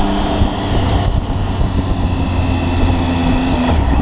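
Triumph three-cylinder motorcycle engine running steadily while riding along a road, with wind noise over the bike's mounted camera.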